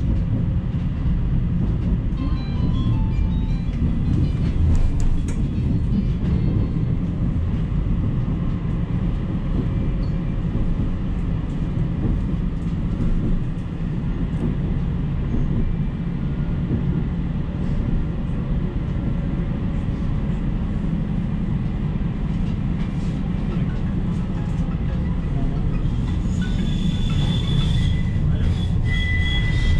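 Low-floor tram heard from inside the car while running along its tracks: a steady low rumble of wheels and running gear. A thin high whine sets in near the end.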